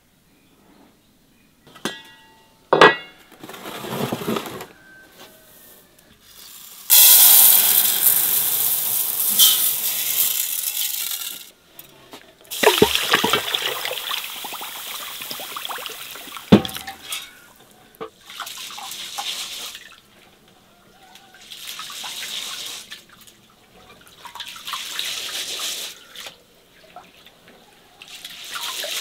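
Water pouring and splashing in several spells, the longest and loudest about seven seconds in and lasting some four seconds, with a few sharp knocks.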